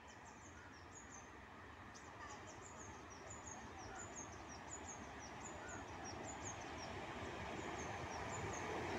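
Birds chirping in quick, high, repeated notes over the rumble of an approaching WAP-4 electric locomotive and its train, which grows steadily louder.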